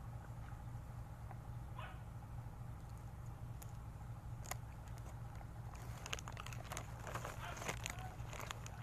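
Dogs eating thrown snack pieces on gravel ground: scattered crunching and scuffing clicks that thicken into a busy crackle about six seconds in, over a steady low hum.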